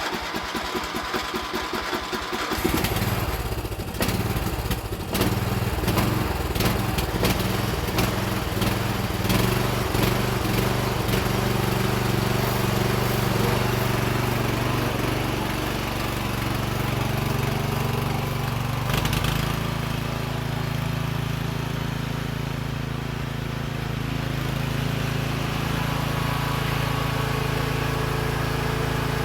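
Briggs and Stratton engine of a Murray riding mower, fitted with a new carburetor, cranking on its starter and catching about two and a half seconds in. It runs unevenly at first, then settles into a steady run about 19 seconds in.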